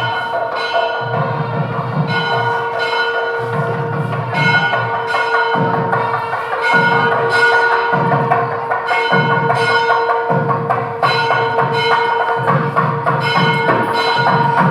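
Background music: a steady held drone with bell-like strikes and a regular low beat about once a second.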